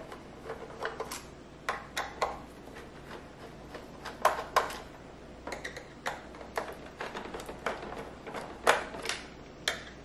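Screwdriver and screws clicking and tapping against the plastic underside of an iRobot Roomba 614 robot vacuum as its screws are taken out. The clicks are sharp and irregular, some coming in quick pairs.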